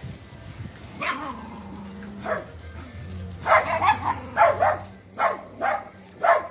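Eight-week-old puppies yapping in play: a couple of short, high yaps early on, then a quicker run of about seven louder yaps in the second half.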